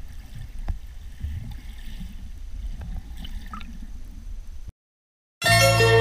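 Water heard from below the surface: a low, muffled rumble with gurgles and small clicks of bubbles as a snorkeler swims past. It cuts off abruptly about three-quarters of the way in, and after a short silence music begins just before the end.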